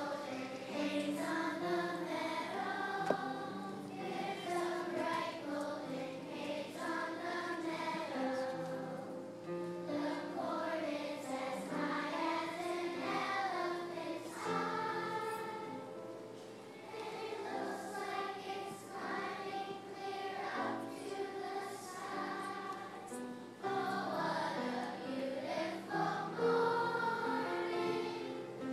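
A children's choir singing together.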